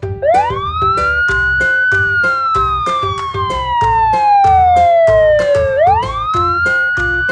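Fire truck siren wailing: the pitch rises quickly, falls slowly over several seconds, and rises again near the end. Children's background music with a steady beat plays under it.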